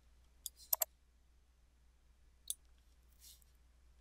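Computer mouse buttons clicking: a single click, then a quick double click about a second in, and another click past the middle, with a soft brief rustle near the end over a faint steady hum.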